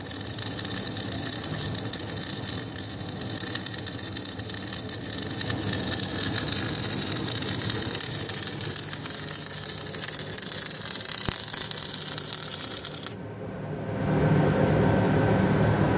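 Electric arc welding: a steady, dense crackle that cuts off suddenly about thirteen seconds in as the arc is broken. A steady low hum of machinery follows near the end.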